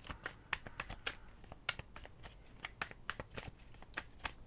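A tarot deck being shuffled by hand: a quick, irregular run of faint card clicks and flicks, with a sharper snap near the end.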